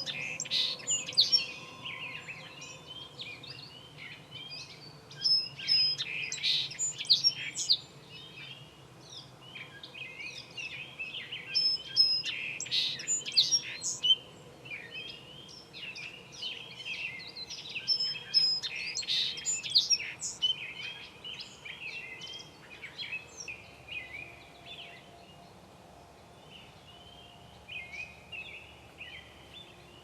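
A songbird singing loud, jumbled phrases of quick whistled notes about every six seconds, with softer chirps between them that thin out over the last several seconds.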